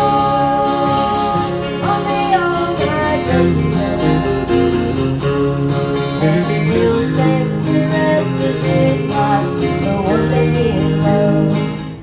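Live performance by a duo playing two guitars and singing into microphones, heard through the stage speakers.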